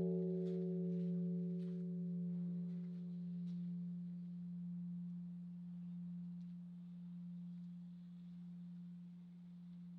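Large Korean Buddhist temple bell (beomjong) ringing out after a stroke: a deep, steady hum that slowly dies away, swelling and fading about once a second, while its higher overtones fade within the first few seconds.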